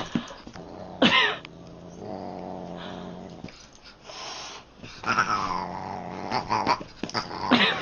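A cat yowling in loud cries that bend up and down, about a second in and again near the end, with a long falling cry around the middle and growling between, during a scuffle with a dog.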